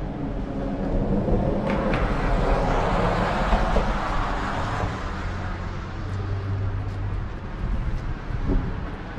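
A motor vehicle passing on the road, its tyre and engine noise swelling to a peak a few seconds in and then fading, with a low steady engine hum afterwards.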